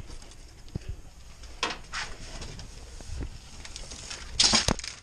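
Scattered rustling, clicks and knocks of an air suspension air line being handled and fed over a car's rear subframe, with a louder scrape and a sharp click near the end.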